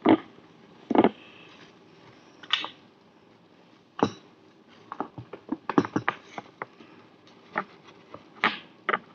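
Scattered sharp clicks and light knocks as a Hakko 936 soldering iron is handled: picked up from its stand and its tip set down against the sensor of a tip thermometer. They are busiest around the middle.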